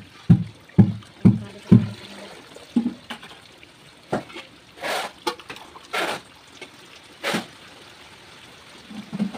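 Water being scooped with a terracotta dipper and poured from a steel pot into a plastic bucket. Five quick low thuds come in the first two seconds, then three brief sharper splashes, over a faint steady trickle.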